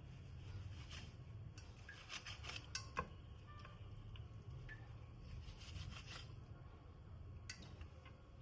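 Faint kitchen handling sounds: a scatter of light clicks and clinks, sharpest about three seconds in, over a low steady hum.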